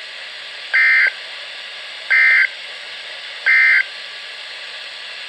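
Emergency Alert System end-of-message signal: three short data-tone bursts about a second and a half apart, marking the end of the alert. A steady hiss of static lies under them.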